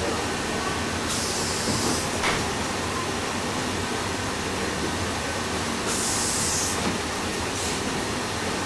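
Paddle steamer's steam engine running, its crankshaft turning with a steady mechanical rumble. A high hiss of steam rises twice, about a second in and again near six seconds.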